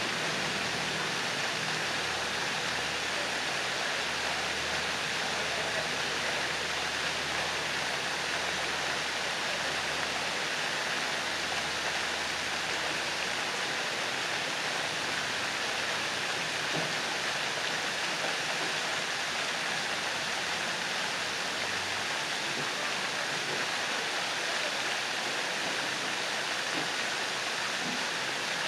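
Pond fountain jets spraying and splashing steadily into the water: an even rush of falling water.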